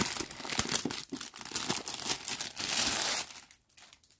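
Thin clear plastic wrapping crinkling and rustling as hands open it and slide out a sheet of stiff Aida cross-stitch fabric. The crinkling stops a little over three seconds in.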